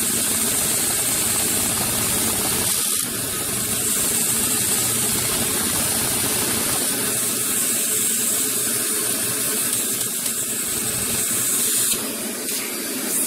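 Small vacuum (flame-licker) engine running and driving a Lego three-speed gearbox, a steady fast mechanical rattle of the engine and plastic gears. It dips briefly about three seconds in and fades near the end.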